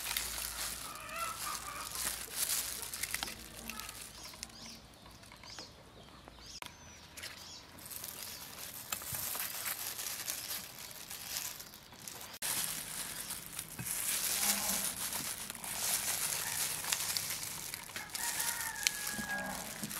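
Domestic chickens clucking, with a rooster crowing.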